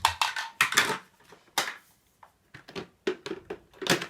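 Hard plastic parts of a steam cleaner knocking and clicking together as they are handled and fitted: an irregular run of sharp clicks and clacks.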